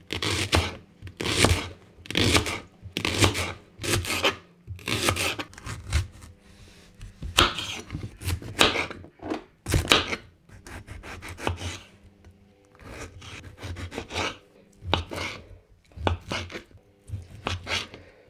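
Kitchen knife chopping leek and cucumber on a cutting board: single cuts, about one a second, with a few short pauses.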